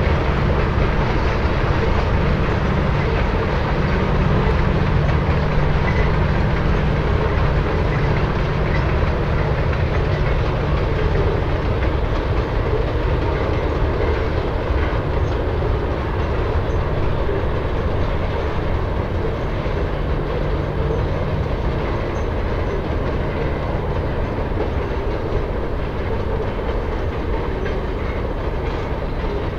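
Freight train with several diesel locomotives working, the engines' low drone over the rolling and clickety-clack of the cars on the rails. The sound slowly grows fainter as the train pulls away.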